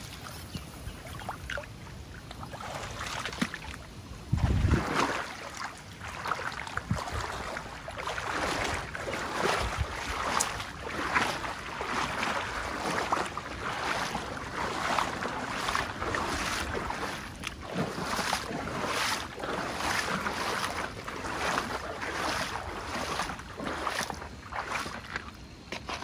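Water splashing and lapping in irregular bursts, with a gust of wind rumbling on the microphone about four seconds in.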